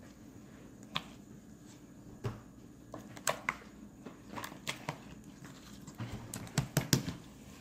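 Glitter slime being squeezed and kneaded by hand, giving off scattered small wet clicks and pops. They are sparse at first and come more often in the second half.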